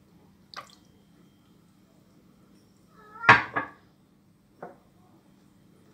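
A few sounds of kitchen containers being handled on a counter: a light tap, then a louder short clatter with a brief squeak a little after three seconds, then another light knock.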